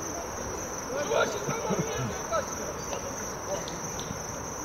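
Steady high-pitched trill of crickets or similar insects. About a second in, faint distant shouts and calls from people on the football pitch cut across it.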